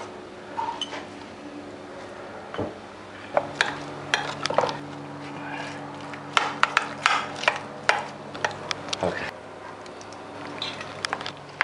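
A spoon stirring sliced red onion into yogurt in a glass bowl, clinking sharply and repeatedly against the glass through the middle of the stretch. A steady low hum starts about three seconds in.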